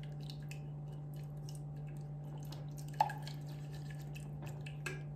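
Silicone pastry brush stirring egg yolk and yogurt in a small stainless steel saucepan: quick wet clicks and scrapes, with one sharper tap on the metal pan about three seconds in that rings briefly. A steady low hum runs underneath.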